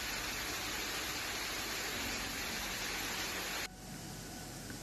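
Heavy rain and floodwater rushing down a street, a dense steady hiss. About three and a half seconds in it cuts off abruptly to a quieter wash of rain and running water.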